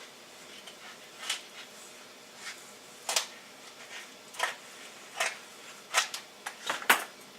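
Aluminum foil duct tape being handled and cut, giving irregular short crackles and rustles, the loudest near the end.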